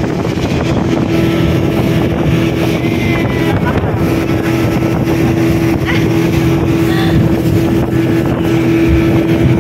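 Speedboat's outboard motor running steadily at speed, a constant unchanging engine tone under the rush of water and wind buffeting the microphone.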